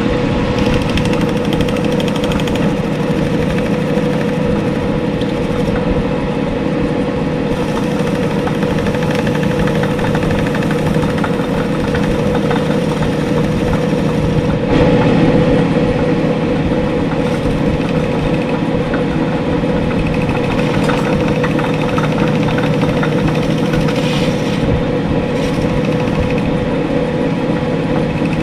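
Small metal lathe running steadily with a constant hum, turning a fork bushing held in the chuck while it is cut down to width.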